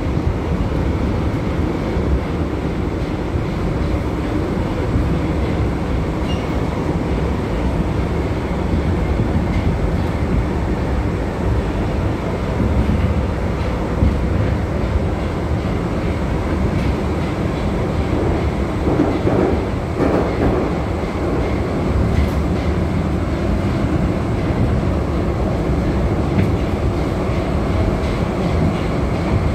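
Running noise of a modernized Sofia Metro train heard from inside the car while it travels between stations: a steady, loud low rumble of wheels and running gear.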